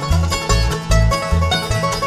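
Bluegrass band playing an instrumental tune live: plucked strings over a deep bass note about twice a second.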